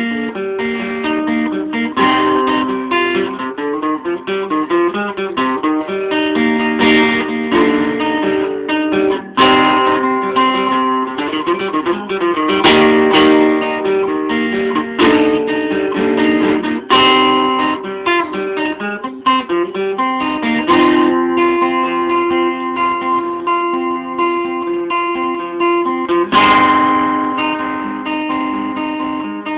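Acoustic guitar played solo, a steady run of picked notes and chords with some strumming, each chord left to ring before the next change.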